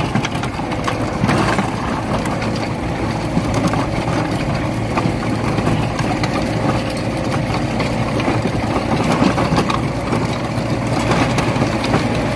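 Tractor engine running steadily while pulling a five-row hoeing cultivator, its shielded blades scraping through dry soil between crop rows with many small crackling clicks of clods and stones.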